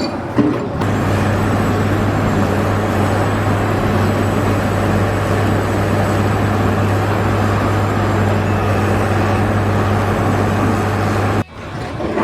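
A machine running steadily with a low, even hum under a broad noise, which cuts off suddenly near the end.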